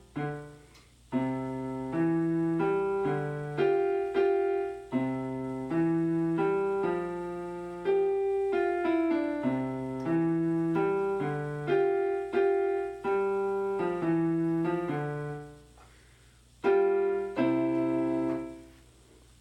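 A learner playing a short, simple piece on the piano: melody notes over lower bass notes, with a brief stop about sixteen seconds in before the final phrase. The timing is still uneven.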